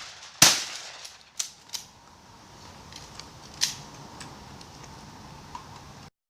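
A shotgun shot about half a second in, followed by a few fainter sharp cracks. The sound cuts off abruptly near the end.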